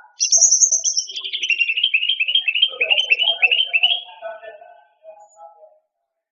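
Cucak rante songbird singing one loud phrase. It opens with a short high trill, runs into a fast series of falling chirps, about six a second, and trails off into softer low notes about four seconds in.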